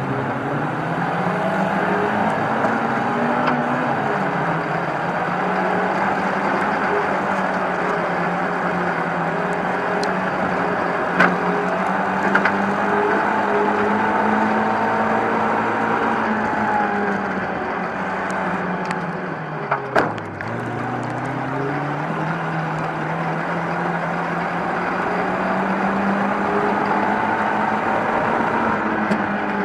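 A youth ministock race car's engine, heard from inside the car, running hard at racing speed. The revs climb early, hold high, drop sharply about two-thirds of the way in as the driver lifts, then climb again. A few sharp knocks stand out, twice about a third of the way in and once at the drop in revs.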